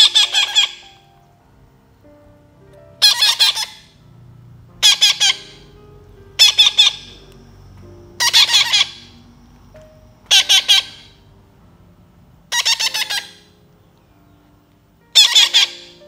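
Baby green parrot squawking while being hand-fed papaya: eight harsh, rasping calls about every two seconds, each a quick run of several notes, the begging calls of a hand-fed chick.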